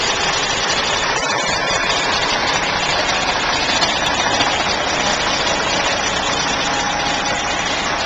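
Steady, loud running noise of idling vehicle engines and traffic, unbroken throughout.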